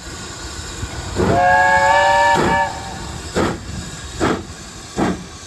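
Steam locomotive sound: a multi-note steam whistle blows for about a second and a half, then slow exhaust chuffs follow, about one every three-quarters of a second, over a steady hiss of steam.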